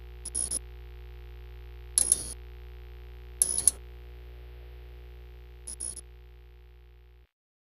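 Synthesized logo-intro sound effect: a steady electronic drone with four short crackling glitch bursts spread through it, fading out near the end.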